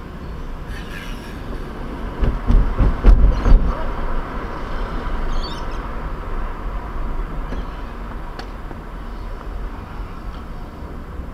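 Steady road and engine noise of a car, heard from inside the cabin through a dash camera, with a burst of heavy low thumping and rumble about two seconds in that eases off by about four seconds.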